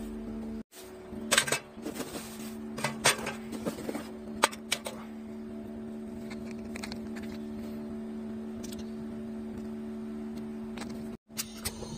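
Lumps of charcoal being handled: a few sharp knocks and clicks in the first five seconds, over a steady low hum.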